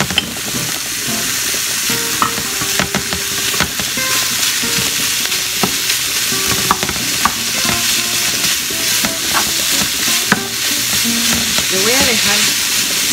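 Raw ground beef sizzling as it starts to fry in a pan with onion and garlic, with a steady hiss. A utensil stirring and breaking up the meat makes scattered scrapes and clicks against the pan.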